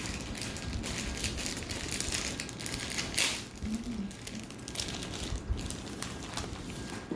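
Crinkling, rustling and clicking handling noise close to the microphone, with a louder rustle about three seconds in.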